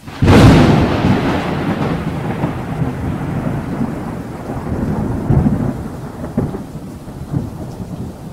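Thunder sound effect: a loud clap of thunder about a quarter second in, fading into rolling rumbles over a steady rain-like hiss, with further swells of rumble in the second half.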